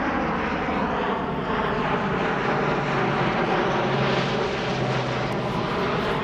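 An airplane flying overhead: a steady engine noise carrying several level tones, loud enough to halt speech.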